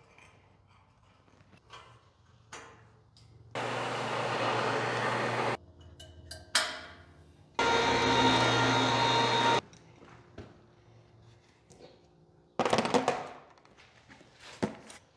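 An electric motor runs twice for about two seconds at a time, starting and stopping abruptly, the second run with a steady whine. A short clatter of loud knocks follows about two-thirds of the way through.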